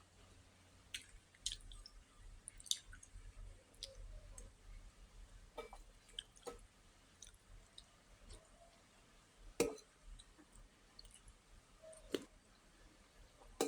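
Close-up eating sounds: scattered wet mouth clicks and chewing, with two louder smacks, one about nine and a half seconds in and one about twelve seconds in.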